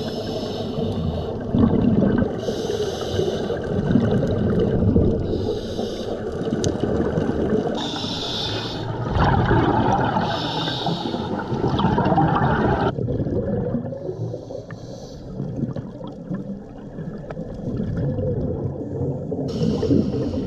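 Scuba diver breathing through a regulator underwater: a hiss with each breath every two to three seconds over a steady bubbling rumble of exhaled air.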